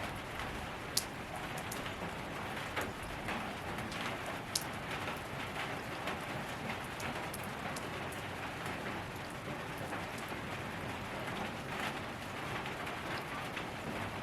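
Steady rain falling on surfaces, an even hiss with scattered individual drops ticking sharply, the clearest about a second in and again near the middle.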